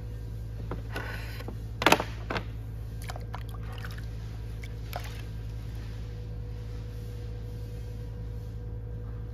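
Electric pottery wheel motor humming steadily while clay is thrown, with a few short wet splashes and knocks of water and hands on the clay, the loudest just under two seconds in.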